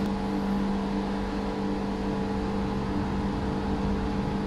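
Steady mechanical hum from running machinery, a constant drone with several fixed tones and no change in pitch or level.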